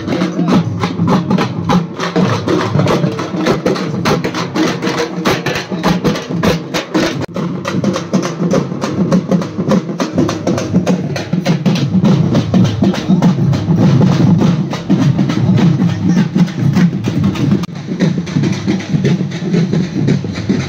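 A troupe of drummers beating large double-headed drums with sticks, many drums together in a fast, loud, unbroken rhythm.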